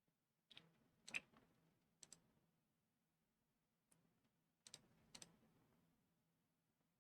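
Faint, scattered clicking of a computer mouse and keyboard, about six sharp clicks with some in quick pairs, the loudest about a second in, over a faint low hum.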